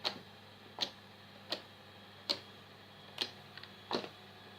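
Homemade slime being squeezed and kneaded, giving off six short, sharp popping clicks about three-quarters of a second apart.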